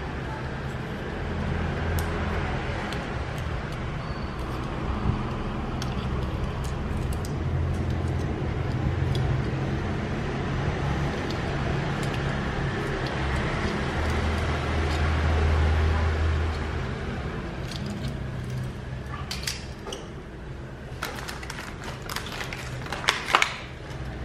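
Small clicks and rattles of a toy army tank being handled and turned over in the fingers, thicker near the end, over a steady low background hum that swells around the middle.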